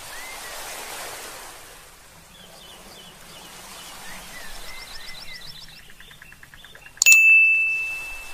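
Cartoon beach ambience: a soft wash of surf with scattered small bird chirps. About seven seconds in, a sudden bright ding sound effect rings on as one steady high tone and is the loudest sound.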